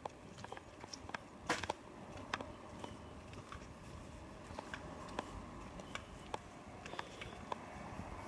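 Footsteps of a person walking on paving: light clicks and scuffs about twice a second, one louder click about a second and a half in, over faint street background.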